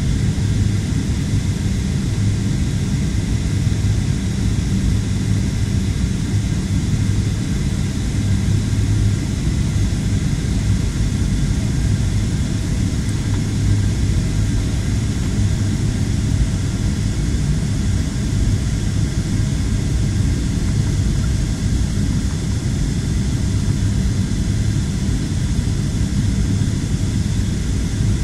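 Airliner cabin noise: the steady drone of jet engines and rushing air, with a constant low hum.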